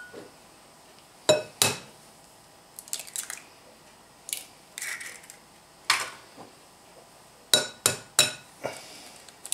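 Eggs being tapped and cracked against the rim of a ceramic mixing bowl: a scatter of sharp clicks and knocks, some coming in quick pairs and threes.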